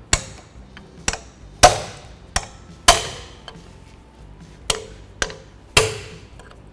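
Hammer striking a pry bar to drive the old front CV axle seal out of its bore: about nine sharp strikes at an uneven pace, each ringing briefly.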